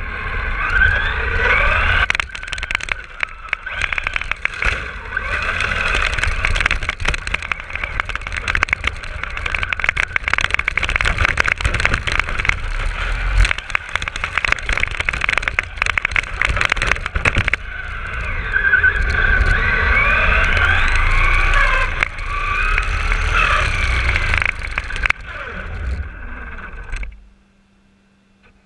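Onboard sound of a Traxxas RC car driving hard over pavement and snow: its motor and gears whine, rising and falling in pitch with the throttle, over heavy tyre and wind rumble. The noise cuts off suddenly near the end as the car stops.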